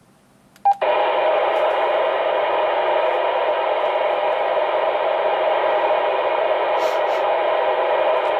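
Radio transceiver gives a short key beep, and its speaker opens straight into steady loud hiss: open-squelch receiver noise on an empty channel.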